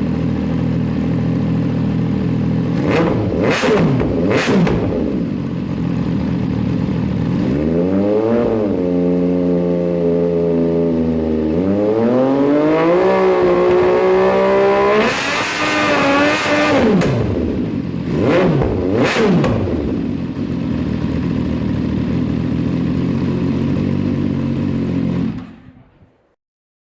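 MV Agusta F3 800's three-cylinder engine idling and being revved: two quick blips, then the revs climb and are held higher in two steps, two more blips, and it settles back to a steady idle before the sound cuts off suddenly near the end.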